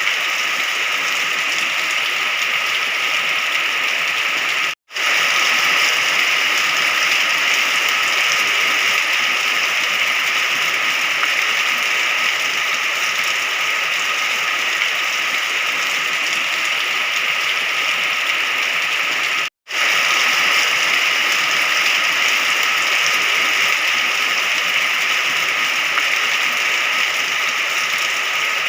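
Steady, dense rainfall making an even hiss. It cuts out for a split second twice, about five and twenty seconds in.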